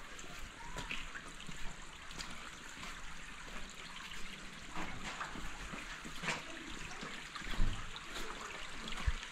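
Water trickling steadily over the stones of a cobbled alley, with scattered light knocks and two louder low thumps near the end.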